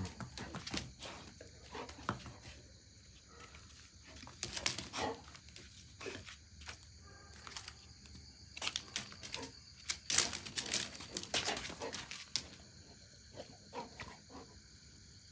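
Golden retriever puppy rooting and chewing at wet leaves and debris on the floor: irregular rustling, crackling and tearing noises, busiest a little past the middle.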